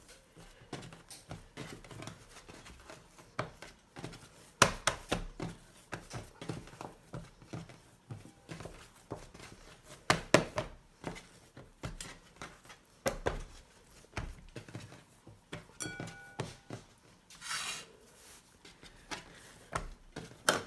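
Hands pressing, patting and stretching a soft flour-and-water dough on a wooden tabletop: scattered soft slaps and thuds, with a few sharper knocks on the wood. A brief beep sounds about two-thirds of the way through.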